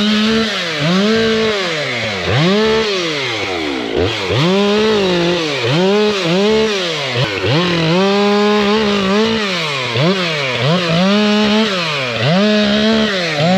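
Two-stroke chainsaw revved to full throttle and eased back again and again, about ten times, as it makes a series of short cuts through wood. The engine stops abruptly right at the end.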